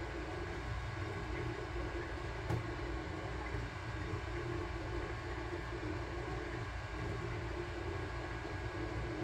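Sunlu Terminator 3 3D printer running mid-print: a steady whir of its cooling fans with the stepper motors humming as the bed and print head move.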